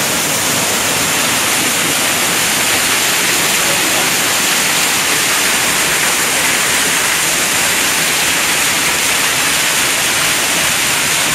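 Waterfall heard close up: a loud, steady rush of falling water.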